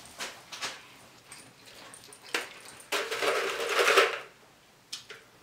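Close-miked eating mouth sounds, small wet clicks and smacks, then about three seconds in a loud slurp through a drinking straw lasting about a second.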